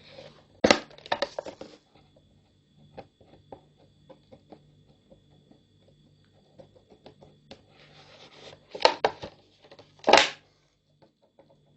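Thin plastic of a Pepsi bottle crinkling and crackling in short bursts as the two halves are handled and pressed together for welding with a soldering iron, loudest about a second in and twice near the end, with small clicks between.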